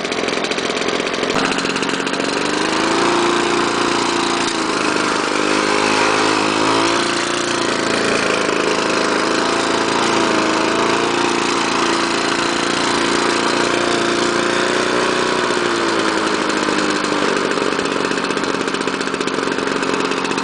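Victa Commando lawnmower's two-stroke Powertorque engine running. It speeds up about two seconds in, wavers briefly, holds a steady higher speed, then drops back to a lower steady speed near the end.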